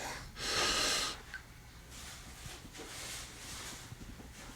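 A man's single heavy, noisy breath out, about a second long, near the start; after it only faint rustling and a few small ticks.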